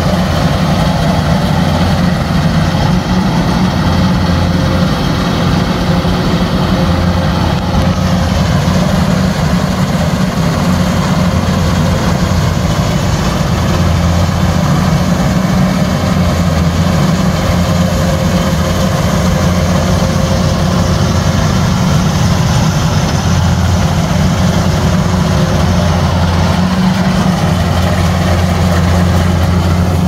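Kubota DC-105X crawler combine harvester's engine running steadily under working load in a low, even hum that swells slightly now and then.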